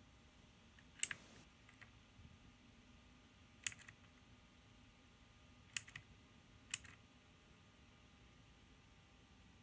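Keys of a FELiCON 82-key mechanical keyboard pressed one at a time: a handful of separate sharp clicks, a second or two apart.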